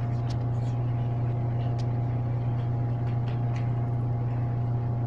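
A steady low hum, with a few faint, sharp clicks of scissors snipping through denim.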